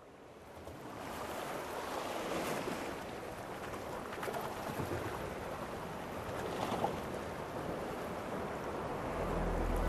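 A steady rushing ambient noise, like surf, fading in from silence over about the first second. Low sustained music notes come in near the end.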